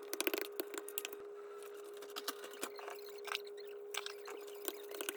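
Close crunching and crackling: a dense, irregular run of sharp clicks over a faint steady hum.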